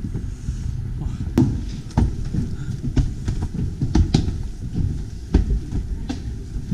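Footsteps climbing steep wooden stairs, knocking and thumping on the treads at irregular intervals of roughly once a second.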